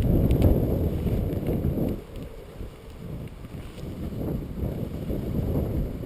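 Strong gusty wind buffeting the action-camera microphone in a low rumble. It eases about two seconds in, then builds again.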